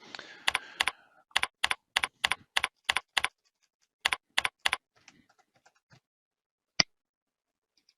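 Typing on a computer keyboard: a quick run of about fourteen keystrokes over four seconds, then a single click a couple of seconds later.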